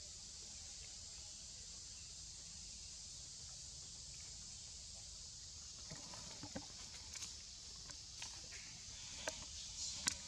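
Steady high buzz of insects, and from about six seconds in a scatter of sharp clicks, rustles and twig snaps as a monkey climbs through the tree branches, the loudest snap near the end.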